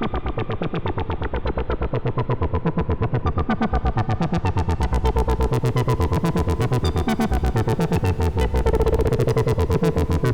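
Modular synthesizer oscillators played through a Behringer Filtamp 1006 filter and amplifier module: a rapid train of short, pitched electronic notes over a heavy bass, the pulses speeding up toward the end.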